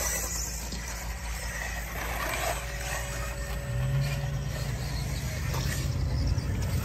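Small electric mini-scale RC buggies running on a dirt track. A steady low hum comes in about halfway through.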